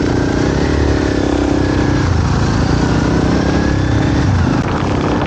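Motorcycle engine running under way in heavy rain, its pitch rising about half a second in and dropping near the end, over a steady hiss of rain.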